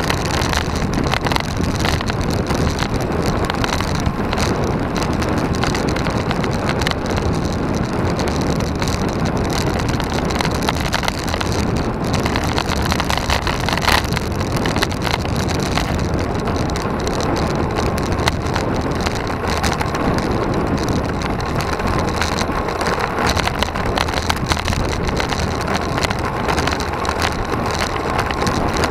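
Steady wind rumble on the microphone of a camera mounted on a moving road bike, mixed with tyre and road noise. Occasional sharp knocks from the bike jolting over the road surface.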